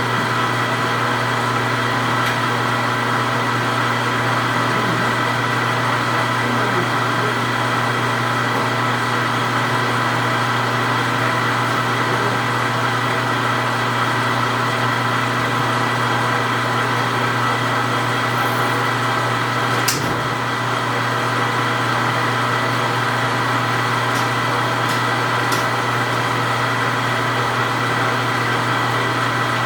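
Steady electric machine hum made of several even tones, unchanging throughout, with a single sharp click about twenty seconds in and a few faint ticks after.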